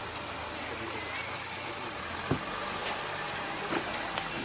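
Loud summer cicada chorus, a steady high-pitched buzz with a fast pulsing beat, cutting in and out suddenly. A couple of faint knocks sound under it.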